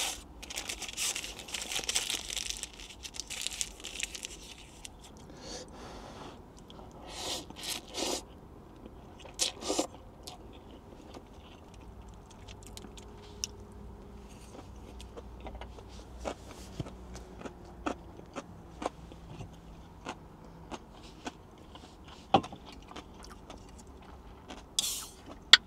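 Crinkling and tearing of paper and plastic food wrapping for the first few seconds, then a few short rustles and scattered light clicks and taps as a cup of instant noodles and its food are handled. Near the end, the short hiss of an aluminium beer can being opened.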